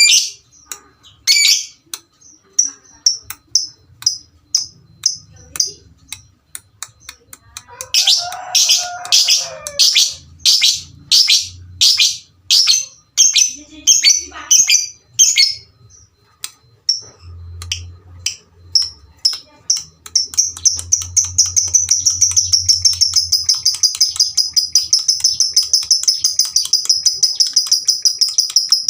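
Lovebirds calling: sharp, high chirps, sparse at first, then a run of loud repeated chirps. About two-thirds of the way in they give way to a continuous rapid-fire high chatter, the long trill lovebird keepers call ngekek.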